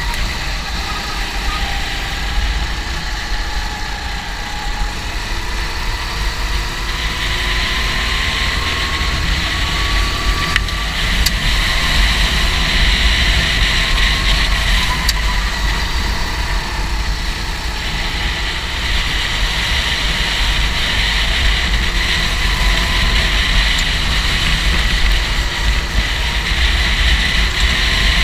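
Go-kart engine running, its pitch slowly rising and falling.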